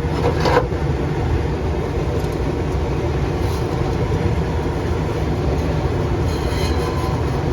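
Steady low rumble of a running furnace blower moving air through a twin-furnace system's cabinet and ductwork.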